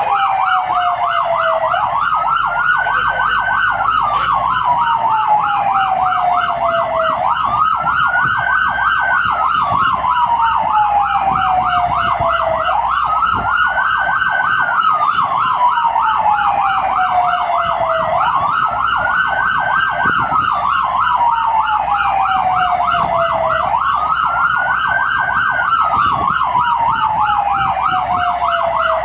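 Responding fire engine's electronic siren. It plays a wail that rises quickly, holds briefly and falls slowly, repeating about every five and a half seconds, over a fast warbling tone.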